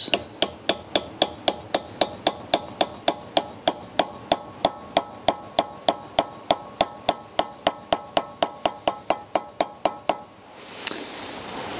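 Hammer tapping an 11 mm socket to drive a new valve stem seal down over a valve guide on a BMW M20 cylinder head until it is fully seated: a steady run of metal taps, about four a second, that stops shortly before the end.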